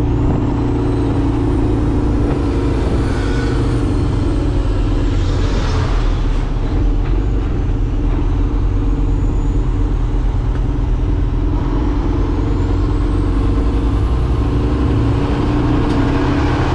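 Cummins X15 diesel engine of a Kenworth T800 dump truck running steadily under way, heard from inside the cab with road noise. A faint high whine rises in pitch over the last few seconds.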